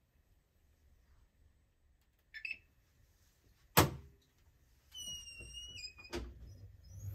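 Siemens iQ700 washing machine starting a programme: a short beep, a sharp loud click, then a whine that falls in steps and another click, with a low rumble beginning right at the end.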